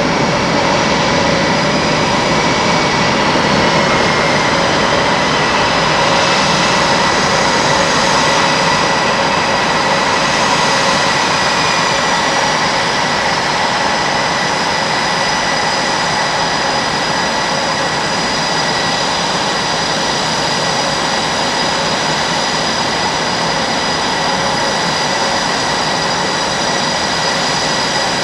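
Blue Angels F/A-18 Super Hornet twin turbofan jet engines idling on the ramp after landing. They make a loud, steady rush of noise topped by a constant high-pitched whine.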